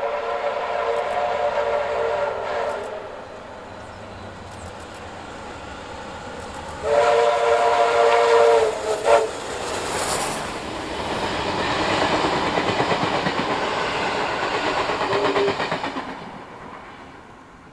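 Victorian Railways R class steam locomotive R766 sounding its whistle: one blast at the start, and a louder second one about seven seconds in that ends in two short toots. Then the locomotive and its carriages pass with a loud rush of exhaust and wheel noise on the rails, fading near the end.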